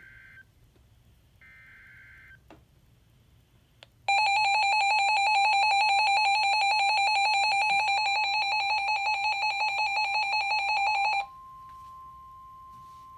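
Emergency Alert System weather-radio alert: two short buzzy digital header bursts, then about four seconds in a loud, rapidly pulsing electronic alarm tone for about seven seconds. It cuts off suddenly and leaves a quieter steady single tone.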